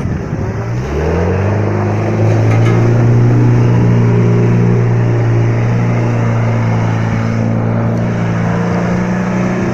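Off-road 4x4 vehicle's engine revving up about a second in, then held at steady high revs.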